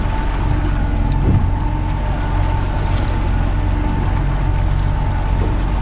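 A 100 hp Yamaha outboard motor running steadily, with the rush of water and wind around the boat.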